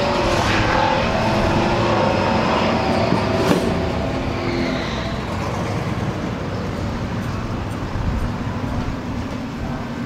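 A car engine running steadily, its sound slowly fading over several seconds, with one sharp click about three and a half seconds in.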